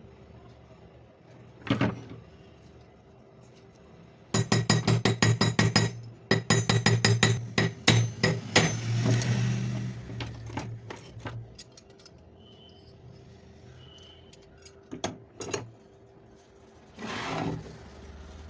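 Quick metal-on-metal tapping, as when knocking loose a mixer grinder's jammed bush. It comes in two runs of several strikes a second, with a steady low hum under the end of the second run. A few single clinks follow near the end.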